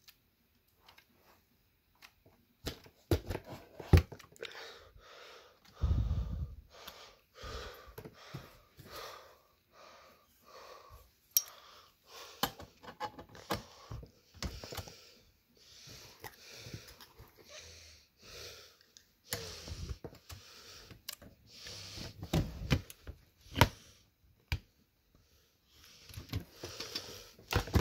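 Handling noise around a brass alto saxophone: sharp clicks and clacks of its keys and body being touched and moved, with a few dull knocks. Breathy hissing close to the microphone recurs about once a second.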